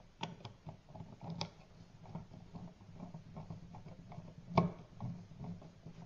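Screwdriver turning an electrical outlet's mounting screw into the box: small irregular clicks and scrapes of metal and plastic, with one sharper click a little past the middle. The outlet is being snugged down over spacers behind its mounting ears.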